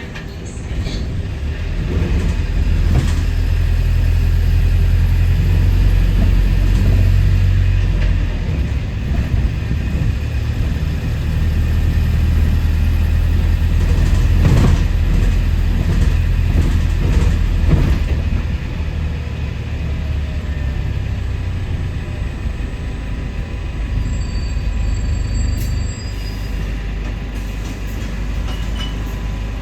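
A double-decker bus's engine running under way, heard from inside the bus: a loud, steady low drone that builds about two seconds in and eases somewhat after about twenty seconds, with rattles from the body.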